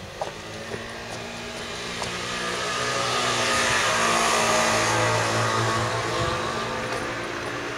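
A motor vehicle passing: its engine and road noise swell to a peak about four to five seconds in, then fade. A few footsteps near the start.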